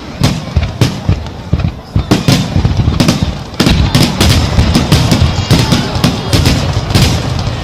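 Fireworks display: shells bursting in quick succession, many sharp bangs a second over a continuous low rumble.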